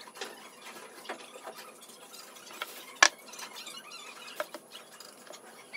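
Plastic bottle of white wood glue squeezed out along wooden boards, with small scattered clicks, and one sharp wooden knock about three seconds in as a wooden block is set down on the board.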